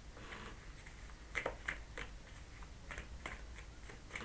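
Tarot cards being handled and laid out on a table: a handful of light taps and card flicks, loudest around the middle.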